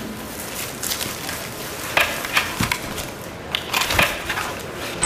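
Paper rustling as pages of document folders are turned and handled, in a few short separate rustles.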